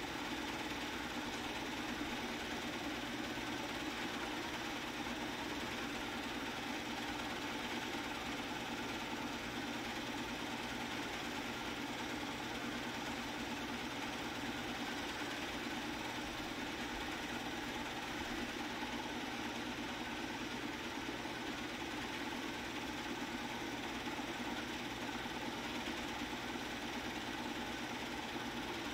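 Movie projector running steadily, its motor and film transport making a continuous mechanical sound.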